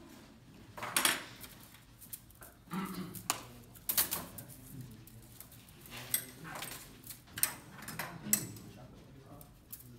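Metal bonsai tools handled on a table: a series of sharp, irregular clicks and clinks as they are picked up and set down.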